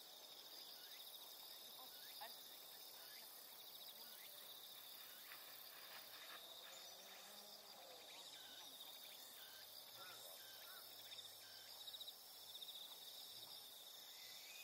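Faint, steady high-pitched trilling of insects in late-summer grassland, a fast pulsing chirr that runs unbroken.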